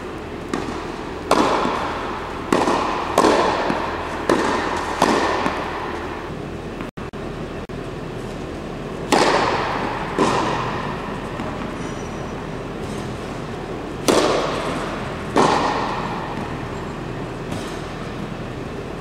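Tennis balls being hit with a racket on serve, each sharp pop echoing in a large indoor hall, and in the later part the hits come in pairs about a second apart. The pops sit over a steady background hiss.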